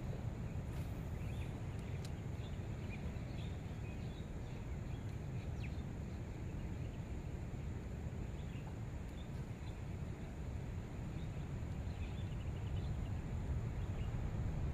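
Outdoor ambience: a steady low rumble of wind on the microphone, with scattered faint short chirps of small birds.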